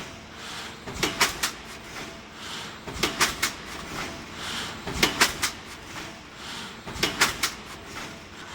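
Thermoforming machine running in cycle: a cluster of sharp mechanical knocks about every two seconds, with a short hiss of air between them.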